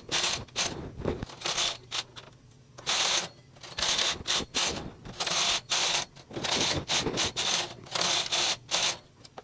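Carriage of a standard-gauge Brother punch-card knitting machine pushed back and forth across the needle bed, knitting two-colour fair isle: a rapid metallic clatter of needles and cams on each pass. The clatter comes in repeated bursts with short pauses between them.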